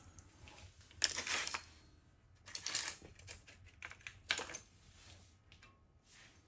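A handful of light metallic clinks and clatters of metal tools and parts being handled and set down, with the loudest about a second in and near three seconds in.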